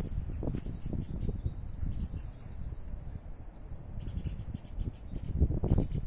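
Small birds chirping in repeated short high notes, with a few brief whistled calls, over a low rumbling noise on the microphone. A louder low thump comes near the end.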